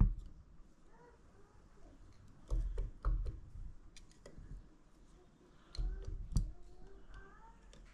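Light metallic clicks and taps of hand tools and engine parts being handled, with two pairs of duller knocks, as connecting-rod side play is checked with a feeler gauge on a bare motorcycle crank.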